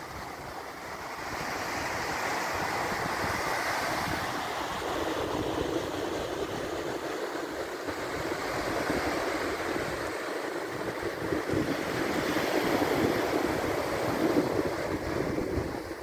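Atlantic surf breaking offshore and washing up a sandy beach: a continuous rushing wash that swells louder a couple of times as waves come in.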